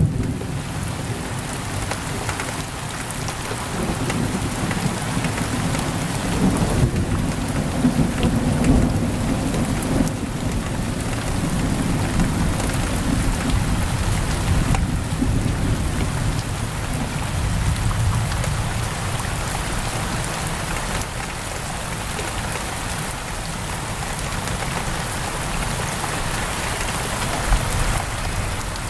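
Heavy rain pouring steadily on a window, with a low rolling rumble of thunder through roughly the first half that fades away.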